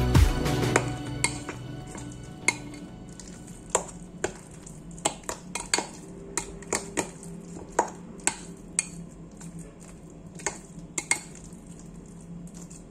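A utensil clinking irregularly against the sides of a glass mixing bowl while a thick, wet minced chicken and grated carrot mixture is stirred, with sharp ticks about once or twice a second.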